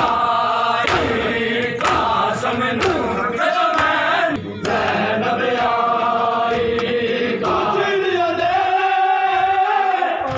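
Large crowd of men chanting a mourning chant (noha) in unison, with sharp chest-beating slaps (matam) about once a second in the first few seconds. Later the voices hold long chanted notes.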